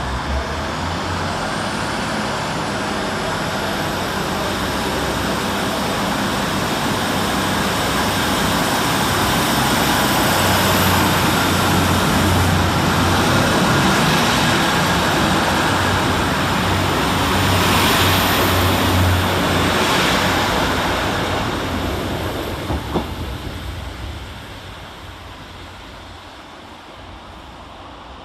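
Two coupled Class 156 Super Sprinter diesel multiple units, their underfloor Cummins diesel engines working hard as the train pulls away. The engine drone builds and then fades, with a high whine rising in the first few seconds and a single sharp knock shortly before the sound dies away.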